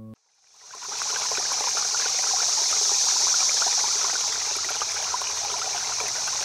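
Small stream running and trickling, fading in over about the first second and then holding steady.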